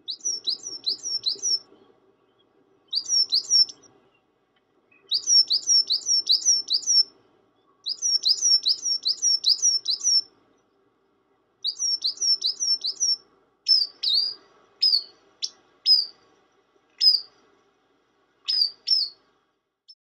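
Coal tit singing: phrases of quick, high, repeated notes, each sliding down in pitch, with short pauses between phrases. Towards the end the notes come singly and further apart.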